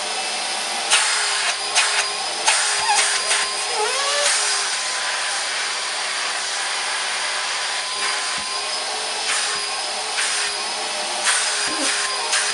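Numatic Charles CVC370-2 1000-watt wet-and-dry vacuum cleaner running steadily, a rushing airflow with a hum, its pitch shifting briefly about four seconds in. Several short knocks and clicks sound over it.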